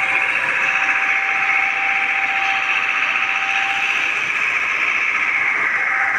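Steady hiss-like machinery noise with a thin, steady whine running under it, from a concrete batching plant at work.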